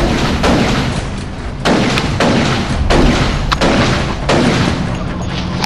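Gunfire in a rapid string of sharp shots, roughly two a second, with a few quick doubles.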